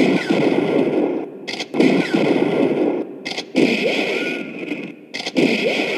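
Four rifle-shot sound effects about every second and three quarters, each a sharp crack that fades into a long noisy tail with a faint falling whine.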